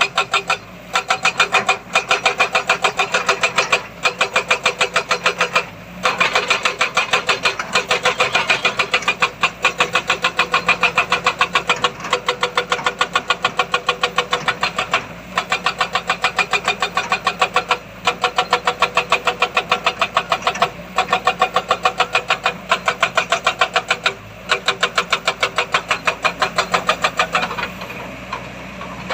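Heavy machine engine running with a rapid, even pulsing, broken by brief pauses every couple of seconds.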